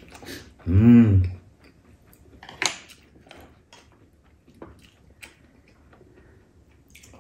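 A brief voiced sound from a person about a second in, then light clicks and taps of a spoon against a small ceramic bowl as soup is scooped and sipped, the sharpest click a little under three seconds in.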